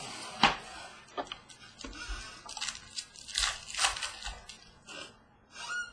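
Packaging of 2016-17 Panini Select basketball cards being torn open and handled: a string of short, irregular crinkles and crackles.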